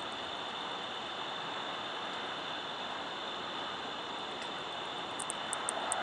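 Steady background hiss with a faint high tone, then, near the end, an angle-wing katydid (Microcentrum) starts its clicking mating call: a quick run of sharp, high ticks, several a second.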